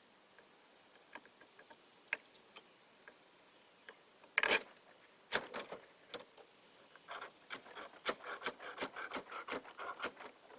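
Toilet paper being packed down onto the powder charge in a small cannon's barrel: scattered light clicks, a short rustle about four and a half seconds in, then a quick run of rubbing and scraping near the end.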